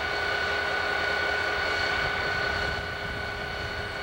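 CSX diesel-electric locomotive running: a steady engine rumble with a high, even whine held over it, a little quieter about three seconds in.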